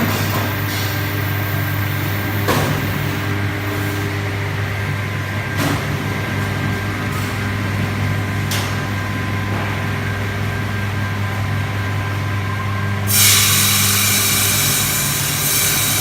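Electric ice-cutting machine running with a steady motor hum and a few sharp knocks. About thirteen seconds in, a loud grating hiss starts and carries on.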